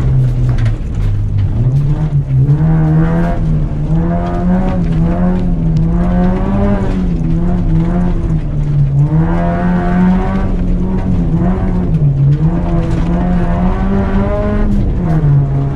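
Acura RSX's four-cylinder engine being driven hard on a dirt rallycross course, its pitch rising and falling repeatedly as the driver accelerates and lifts. The pitch drops briefly about a second in and again near the end.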